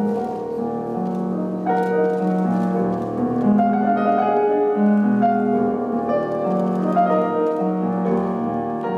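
Slow piano music with held chords that change about every second.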